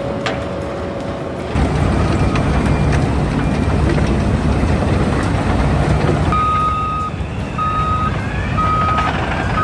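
Heavy vehicle's engine running, its low rumble coming in about a second and a half in, joined about six seconds in by a reversing alarm beeping about once a second.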